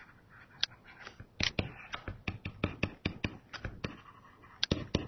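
Stylus pen tapping and scratching on a tablet computer's screen during handwriting: an irregular run of light clicks, several a second.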